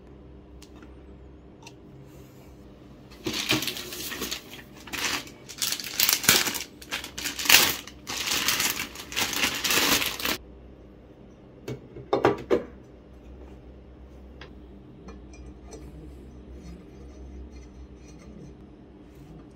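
Packaging being handled during an unboxing: rustling in a run of loud bursts for about seven seconds, followed by a few light clicks and knocks about twelve seconds in.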